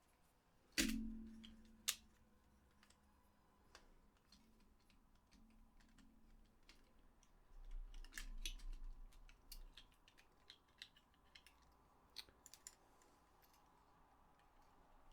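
Small clicks and taps of PS4 controller shell and circuit-board parts being handled during reassembly, with one sharp knock about a second in that rings briefly, and a cluster of duller knocks about eight seconds in.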